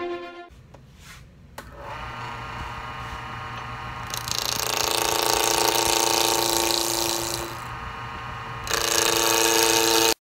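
Wood lathe running with a wooden blank spinning between centres, a steady hum. About four seconds in a turning tool cuts into the spinning wood, adding a loud hiss with a ringing tone. The cut pauses briefly and resumes near the end, then the sound stops suddenly.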